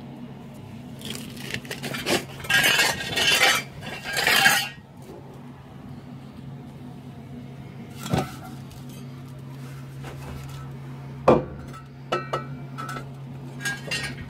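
Steel exhaust pipe being handled and fitted under a van: three loud scraping, rattling bursts of about a second each in the first few seconds, then two sharp metal clanks and a few lighter knocks, over a steady low hum.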